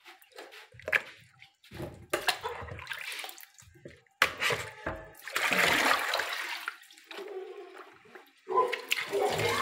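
Hands splashing and sloshing cut yam pieces in a plastic bucket of water, with irregular knocks and splashes. Near the end a tap is turned on and water starts running into the metal sink.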